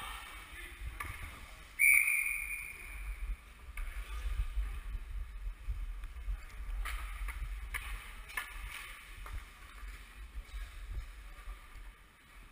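Ice hockey play on an indoor rink: skates and sticks on the ice over a steady low rumble, with scattered sharp clicks. About two seconds in comes a sudden loud ringing tone that fades over a second or so.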